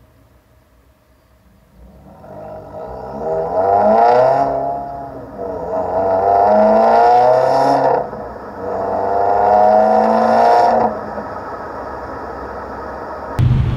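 2018 Subaru WRX's turbocharged flat-four exhaust through a 3" axle-back muffler delete, heard at the tailpipes during a full-throttle pull from 15 to 40 mph. It rises in pitch three times, through second, third and fourth gear, with a brief dip at each upshift, then settles to a steadier cruise. It cuts abruptly to a different, deeper engine sound at the very end.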